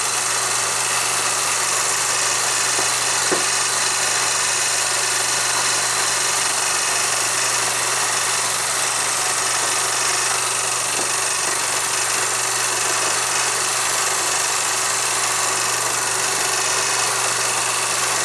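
Steady hum and hiss of old film playback, with no change through the pause in narration, and a single faint click about three seconds in.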